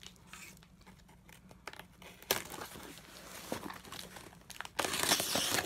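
Cardboard shipping box being handled and opened by hand. It is quiet at first, then crinkling and rustling start about two seconds in, with a louder tearing noise near the end.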